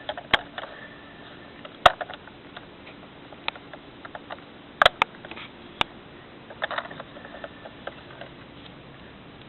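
Scattered sharp clicks and knocks, about half a dozen spread over the stretch, over a faint steady hiss: a plastic toy jeep being handled.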